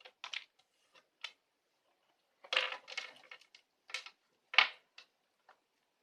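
Irregular hard clinks and rattles of a glass bottle being handled, with pebbles inside it knocking against the glass. A quick cluster comes in the middle, and a sharper clink about three-quarters of the way through.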